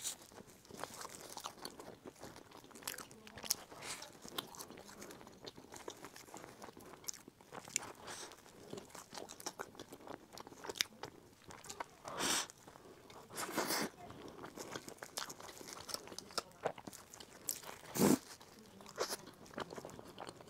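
Close-miked eating of a black bun with a dark chocolate filling: steady chewing with a few louder bites, the strongest about twelve, fourteen and eighteen seconds in.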